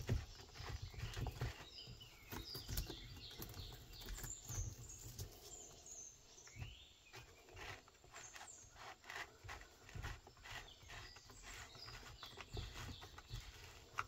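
Quiet, irregular clicks and light knocks of a saw chain and bar being handled and seated by hand on a DeWalt 20V cordless chainsaw, the steel chain links clinking against the bar and plastic housing.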